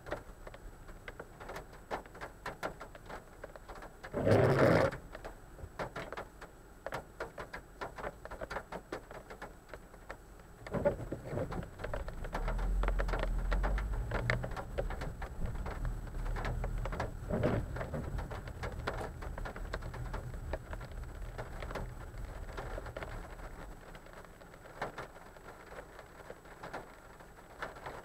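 Raindrops ticking on glass during a severe thunderstorm, with a brief loud rush about four seconds in. From about eleven seconds a long low rumble of thunder rolls, swelling and then fading out by about twenty-four seconds.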